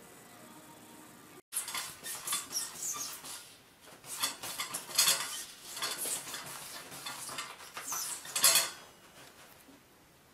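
Irregular bursts of paper rustling and scratching as a cat paws and pulls at toilet paper, starting about a second and a half in and dying down near the end.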